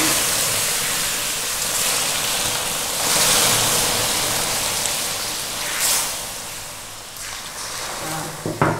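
Coconut water being poured slowly into very hot caramelized sugar in a wok, hissing and sizzling hard as it boils up on contact. The sizzle swells about three seconds in, then slowly dies away as the caramel cools.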